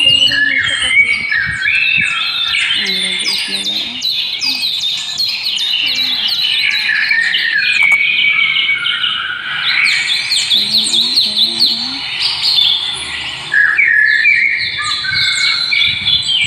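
Many small birds chirping at once: a dense, continuous chorus of short, quick, high chirps, many of them falling in pitch.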